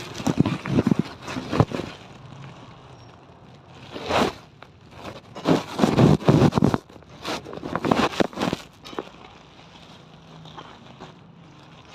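Several bursts of rapid, irregular clicking and crackling, with short quiet gaps between them.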